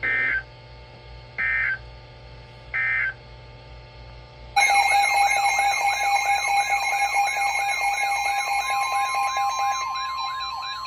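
Three short, identical bursts of Emergency Alert System digital data tones, the end-of-message code closing a warning. About four and a half seconds in, a loud alert signal starts: a fast-warbling siren over steady tones, thinning to a single steady tone near the end, the attention signal ahead of the next warning.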